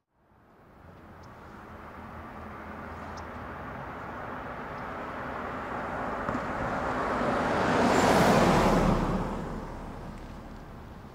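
Small amusement ride train passing close on its track: a rushing noise that builds steadily, is loudest about eight seconds in, then fades away.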